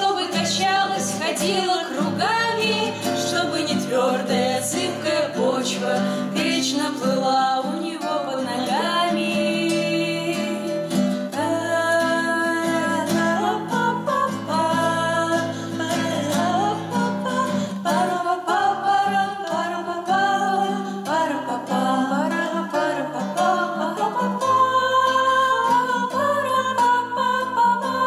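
Women's voices singing a slow melody together, accompanied by an acoustic guitar.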